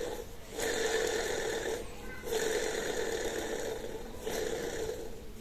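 Split air conditioner indoor-unit fan motor, opened up and turning with a rough running noise from its bad bearing. The noise comes in three spells, with short breaks about two seconds in and again past four seconds.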